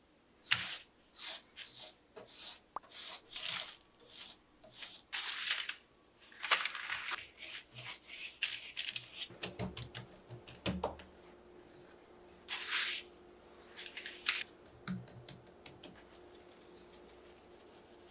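Sheets of phyllo dough rustling and crinkling under repeated strokes of a silicone pastry brush spreading oil over them on a parchment-lined baking sheet. A couple of soft knocks come about ten seconds in.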